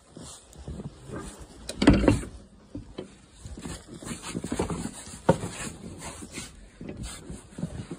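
Wooden door being pushed against packed snow at its base: irregular scraping, crunching and knocking, with a loud bump about two seconds in and a sharp knock a little past five seconds. The snow is jamming the door so it will not close.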